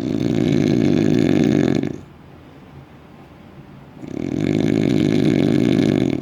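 Loud snoring: two long, rattling snores of about two seconds each, a couple of seconds apart.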